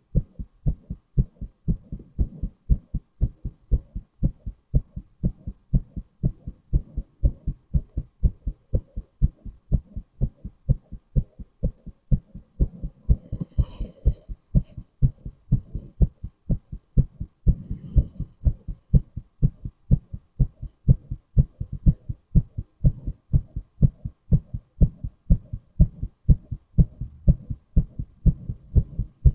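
A man's heartbeat, close up: a steady, even rhythm of low thumps. A brief faint higher-pitched noise comes in around the middle.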